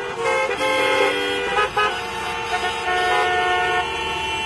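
Many vehicle horns honking at once in traffic, overlapping at several different pitches: some held as long blasts, others short taps.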